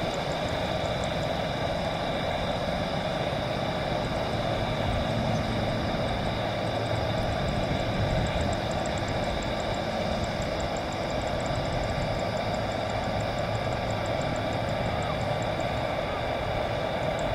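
A Boeing 747-400 freighter's four jet engines running at taxi power as it rolls along the taxiway: a steady whine of several high tones over a low rumble. A faint, fast high-pitched ticking is heard in the background.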